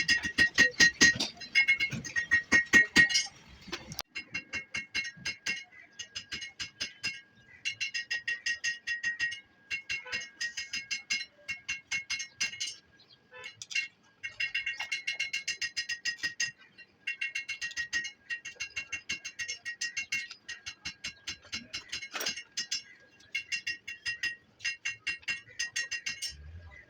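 Background music: a rapid, clinking rhythm with high, bell-like tones, in short phrases broken by brief gaps.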